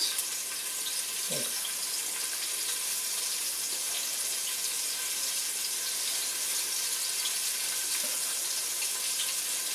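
Flour-dredged chicken breast frying in hot oil in a stainless steel pot, a steady sizzling hiss with fine crackle, as the chicken browns before going into the oven.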